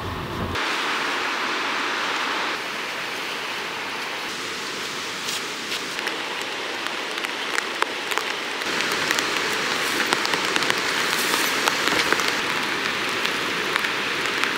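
Steady rain hiss with scattered drops ticking sharply.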